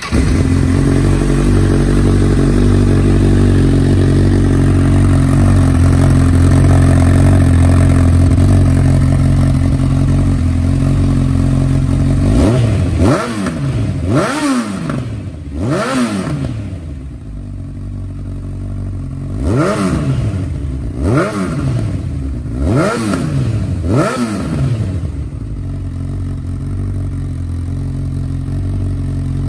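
Honda CB1000R inline-four engine breathing through an SC-Project carbon slip-on silencer, idling steadily for about twelve seconds. It is then revved in a string of quick throttle blips, each rising and falling in pitch, with idle between them.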